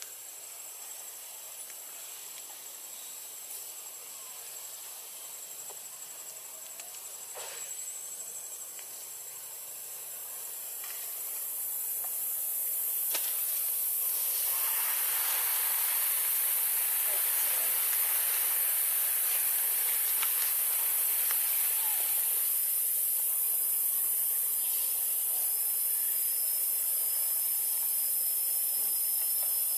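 Steady high-pitched hiss of insects in the forest, growing louder about twelve seconds in; a thin steady high whine joins in the last third.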